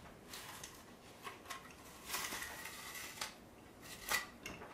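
Shears snipping and crunching through the edges of a carbon-fibre composite shell moulded on a plaster foot mould, trimming off the excess. The cuts come in an irregular series of about seven, with a longer crunch about two seconds in and a sharp snip just after four seconds.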